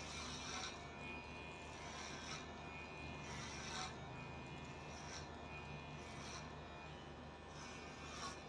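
Electric hair clippers running with a steady hum, worked over a comb in short passes, with several brief crisp bursts as the blades cut through hair.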